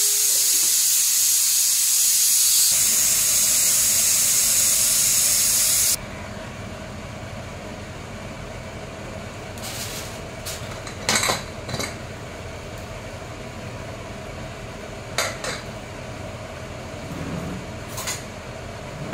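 Rice boiling hard in water in a pan, a loud steady bubbling hiss. It cuts off suddenly about six seconds in to a quieter hiss of rice steaming under a glass lid, with a few short metal clinks as an aluminium pressure cooker's lid is handled and taken off.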